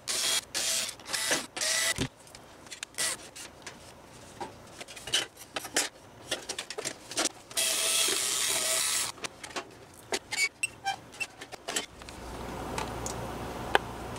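Cordless electric screwdriver running in short bursts, backing screws out of a sheet-metal heater cabinet: several quick runs in the first two seconds, then one longer run of about a second and a half past the middle. Clicks and knocks of the metal case and screws being handled come in between.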